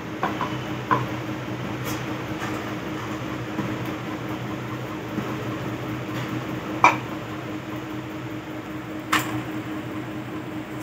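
Wooden rolling pin rolling out paratha dough on a stone board, with a few sharp knocks and clicks, the loudest about seven and nine seconds in, over a steady low hum.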